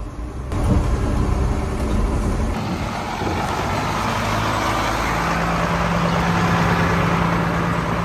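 Truck diesel engine running, heard first from inside the cab of an International semi tractor being parked. About two and a half seconds in, the sound cuts to an outside truck engine idling, with a steady hum coming in about halfway through.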